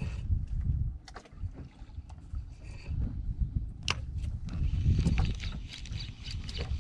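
Water slapping against a small outrigger boat's hull at sea, with wind buffeting the microphone as an uneven low rumble. A few sharp clicks come from the spinning reel being handled, about a second in and again near four seconds.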